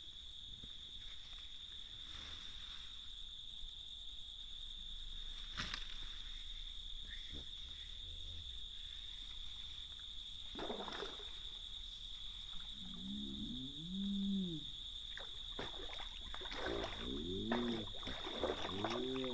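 Insects droning on one steady high pitch, broken by a few sharp knocks. From about two-thirds of the way in, a series of low calls rises and falls in pitch, each lasting about a second.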